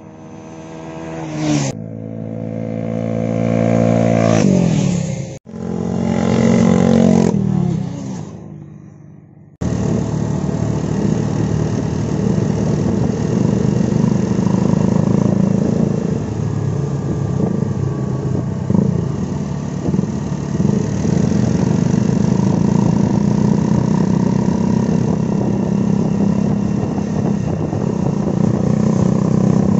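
Motorcycles accelerating, engine pitch climbing and then fading, in two short pieces cut together. Then about twenty seconds of motorcycle engines running steadily at cruising speed.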